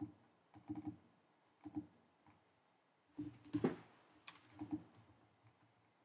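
Faint typing on a computer keyboard: short irregular clusters of keystrokes, with a busier flurry about three and a half seconds in.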